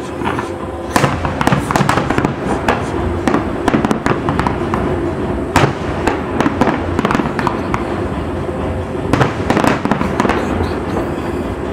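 Fireworks display: aerial shells bursting and crackling in a rapid, continuous barrage, with a few louder bangs about a second in, about halfway, and near the end.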